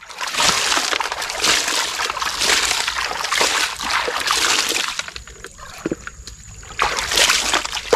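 Splashing and sloshing of water with gritty scraping as a hand scoops and rinses wet gravel out of a plastic toy dump truck's bed. It is busiest in the first five seconds, then quieter, with a few more splashes near the end.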